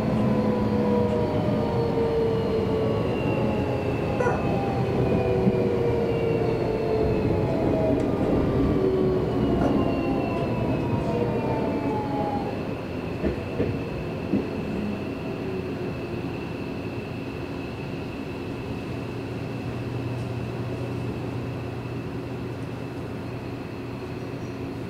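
Seibu Railway electric train's traction motors whining, the tones falling steadily in pitch as the train slows. After about twelve seconds the whine gives way to a steadier, quieter hum, with a few short clicks.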